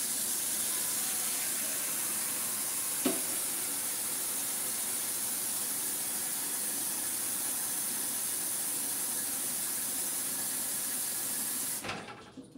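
Kitchen tap running steadily, filling a cooking pot with water, with a single knock about three seconds in. The water shuts off near the end.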